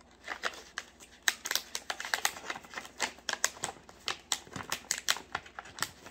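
Snack pouch crinkling and crackling in the hands as it is pulled at to open it: a quick, irregular run of crackles.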